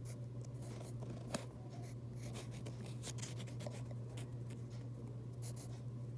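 Irregular short scratchy strokes of drawing on paper, with one sharper tick about a second in, over a steady low hum.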